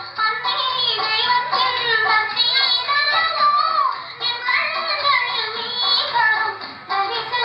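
A Tamil song is playing: a high singing voice carries the melody in long, wavering notes over musical accompaniment.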